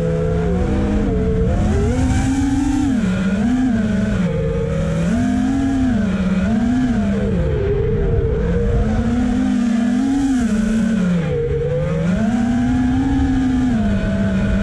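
FPV quadcopter's brushless motors and propellers buzzing, the pitch swinging up and down every second or two with throttle changes, over a steady rushing noise.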